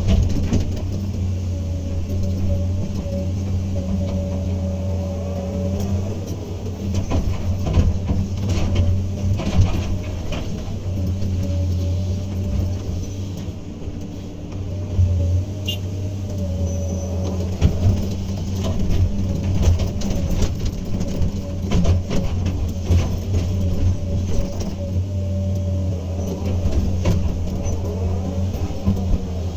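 Hydraulic excavator's diesel engine running steadily under working load, with a whine that comes and goes and scattered knocks and rattles as the machine works.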